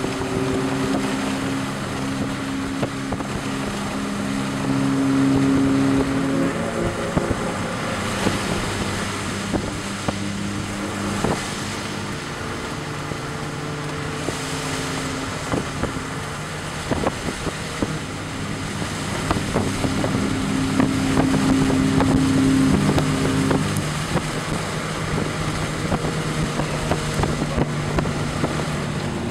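Road and wind noise from a moving vehicle, with scattered knocks and clicks, under several low held tones that change pitch every few seconds.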